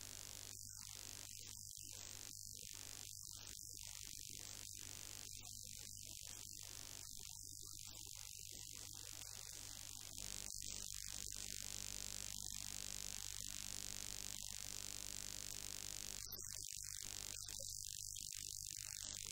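Steady high-pitched hiss over a low electrical hum, with no distinct sound events: the recording's background noise, stepping slightly louder about halfway through.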